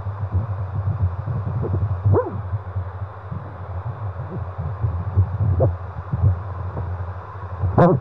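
Ultrasonic fetal Doppler's loudspeaker playing a fetal heartbeat as a fast, even pulse, with a few brief louder swishes, the loudest near the end.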